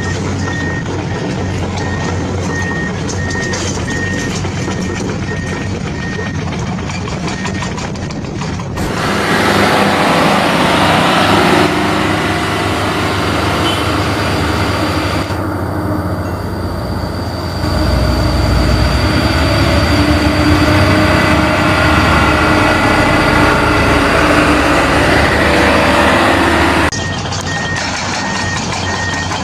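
A truck's reversing beeper sounding a steady series of evenly spaced high beeps, about two a second, over a low engine rumble. About a third of the way in, a louder, noisier sound takes over and hides the beeps; they come back near the end.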